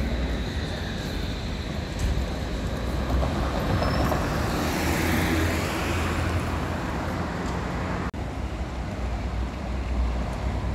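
City street traffic noise, a steady low rumble with a vehicle passing by about halfway through.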